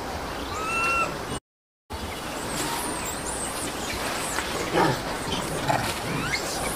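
A baby macaque gives a short, high, pitched cry about half a second in, and the sound then drops out completely for about half a second. After that come high chirps, squeaks and scattered clicks over a steady hiss.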